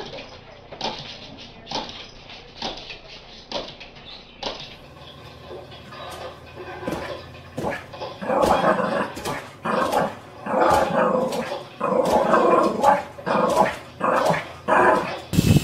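Dogs barking: first a run of single barks about once a second, then a small dog yapping and whining excitedly in quick, overlapping bursts that grow louder.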